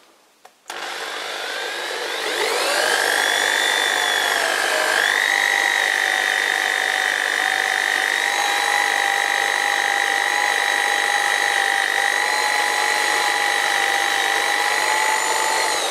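A tool-post electric drill spindle starts up about a second in and rises in pitch as it spins up. It then runs with a steady high whine while a center drill in its chuck is fed into the knurled steel arbor to cross-drill a hole.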